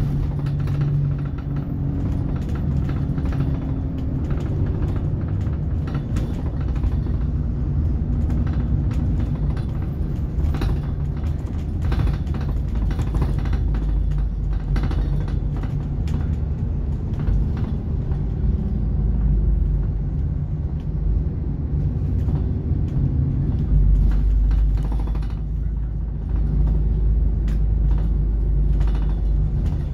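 Alexander Dennis Enviro 400 double-decker bus on a Dennis Trident chassis, heard from the upper deck while under way. Its engine and road rumble run steadily under frequent rattles from the body and fittings. A deeper rumble comes in about three-quarters of the way through.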